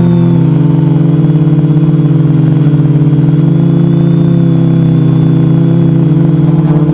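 A multicopter's electric motors and propellers buzzing loudly, heard up close from its onboard camera: a steady drone whose pitch wavers slightly as the craft flies.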